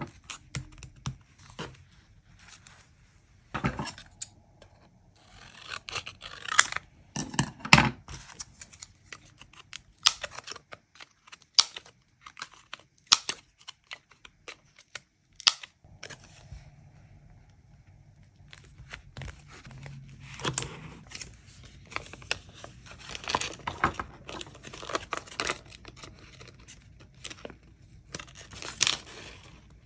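Paper crafting sounds: stickers peeled and handled, with paper rustling and tearing. Partway through comes a run of sharp clicks from a corner-rounder punch cutting the corners of a playing card.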